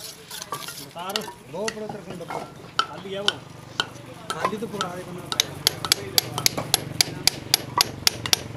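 Mortar being scraped and worked against brick. About halfway through, it gives way to a quick, even run of sharp taps, about three a second, as a mason's tool beds bricks into mortar.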